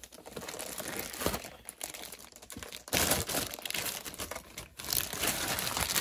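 Clear plastic packing bag crinkling and rustling as a boxed power supply is worked out of it and its foam end caps, with louder handling from about halfway through.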